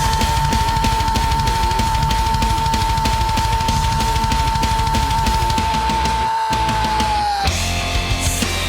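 Heavy rock music with drums and distorted guitar, one high note held steady for about seven and a half seconds, dipping slightly just before it ends.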